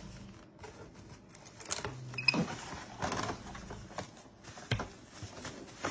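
Plastic cling wrap crinkling and rustling as it is pulled from its box and handled, in irregular crackles and scratchy rustles.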